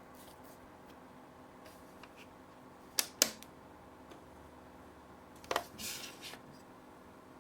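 A few sharp clicks from handling small plastic objects, two close together about three seconds in and another near the end, followed by a brief rustle.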